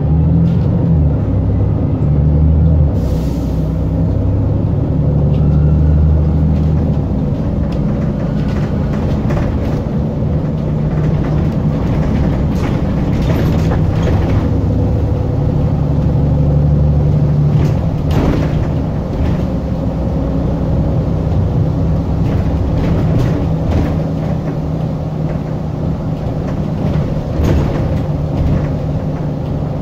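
Volvo 7000A articulated bus's Volvo D7C275 six-cylinder diesel, driving through a ZF 5HP592 automatic gearbox, running under way with a steady drone that changes pitch a few times, with scattered knocks and rattles.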